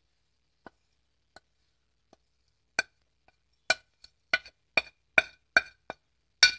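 Sharp knocks of a spatula and plate tapping against the rim of a pressure cooker pot, knocking ground coconut paste off into it. There are two faint taps, then about nine louder knocks in the second half, roughly two a second.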